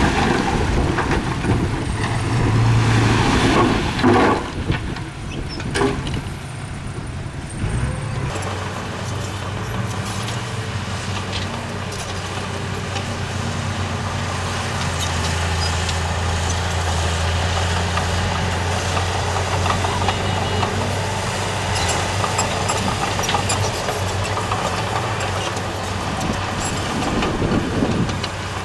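Heavy diesel engine of road-building machinery running steadily, with a loud mix of rattling and clatter for the first several seconds.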